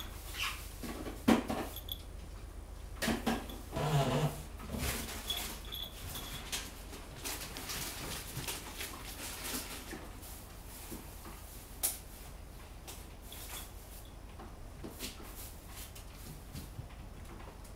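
Cats moving about at a curtained window: scattered curtain rustles and light knocks, with a short cat vocalization about four seconds in.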